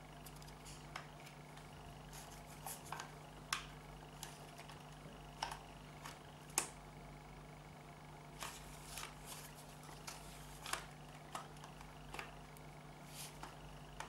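Irregular sharp clicks and light knocks from a Mercedes-Benz W202 automatic gear-selector assembly being handled and fitted together by hand, over a steady low hum.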